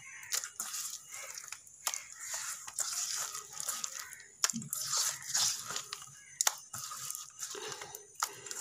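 A hand kneading and squeezing a soft, sticky dough of mashed ripe banana, semolina, flour and sugar in a stainless steel bowl, in irregular strokes with small clicks. The sugar is still being worked in until it dissolves.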